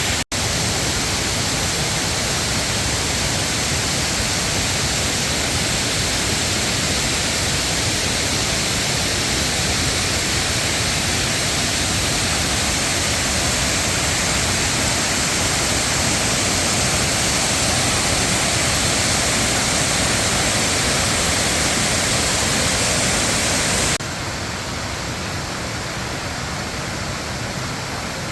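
Kuang Si waterfall's falling water making a loud, steady rushing hiss. About 24 s in, it cuts abruptly to a quieter, duller rush.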